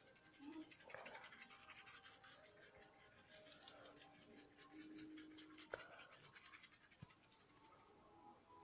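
Faint, fast scratchy brushing strokes with a high hiss, many strokes a second, stopping about eight seconds in, as in a played-back 3D-audio clip.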